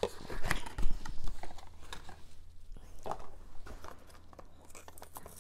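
A small cardboard box being opened and a plastic Cirkul flavor cartridge handled: a quick run of irregular clicks and taps, busiest in the first second and a half, then sparser.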